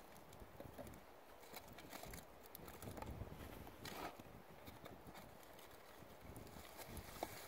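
Near silence: faint outdoor room tone with a few soft clicks.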